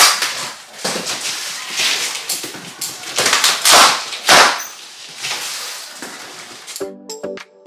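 Packing tape and cardboard being torn by hand from a large shipping box: a series of irregular ripping and scraping sounds, the loudest rips about three to four and a half seconds in. Background music with a clicking beat comes in near the end.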